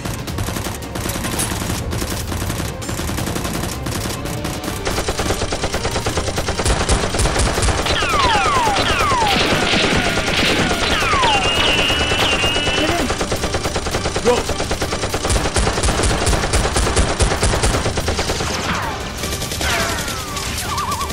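Rapid, sustained gunfire sound effects, a dense run of shots building up about five seconds in, with several falling whistling sweeps between about eight and eleven seconds.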